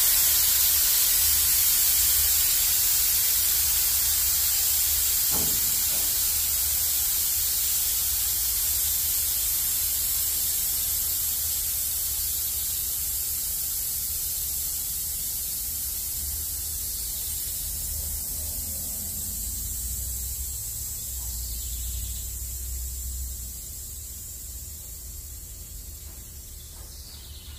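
Air-bag suspension being aired out: pressurised air hissing steadily from the exhaust valves as the bags deflate. The hiss fades slowly as the pressure drops, falling off more clearly near the end.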